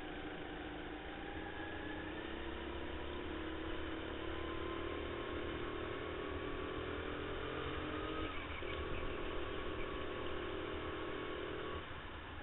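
Racing go-kart engine running at speed, its note climbing steadily as the kart accelerates, breaking abruptly about two-thirds of the way through, then dropping off near the end as the throttle eases.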